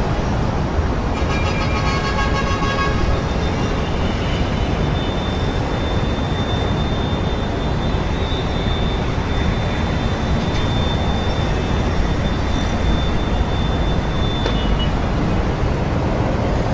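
Strong wind rushing over the microphone in a steady low rumble. A faint high whistling tone is held through the middle.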